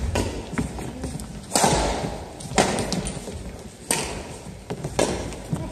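Badminton rally: four sharp racket strikes on the shuttlecock about a second apart, echoing in a large gym hall, with lighter footfalls and taps between them.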